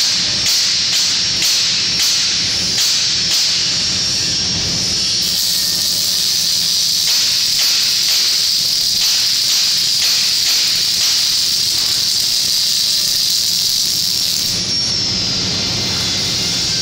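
Panasonic robot's wire-fed arc-welding torch welding steel. The arc pulses about twice a second for the first few seconds, then runs continuously and stops about two seconds before the end.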